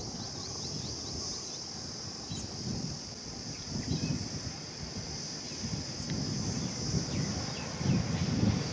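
Steady high-pitched insect drone with a few short bird chirps, over an irregular low rumble that swells at times and is loudest near the end.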